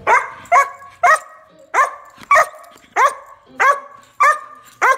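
A large shepherd-type dog barking repeatedly, about nine loud, sharp barks at a steady pace of roughly one every 0.6 seconds, each dropping quickly in pitch.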